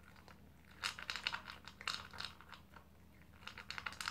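Dog eating from a plastic bowl, crunching its food: quick clusters of crunchy chews about a second in and again near the end.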